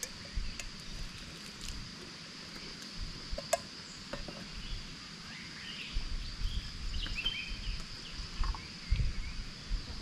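Insects droning steadily at one high pitch, with a few bird chirps about six to seven and a half seconds in. Scattered clicks and low thumps, the loudest near the end.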